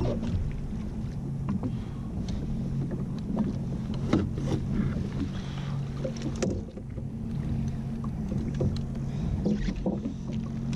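Jet ski engine running steadily at low speed, a low hum with scattered clicks and knocks over it.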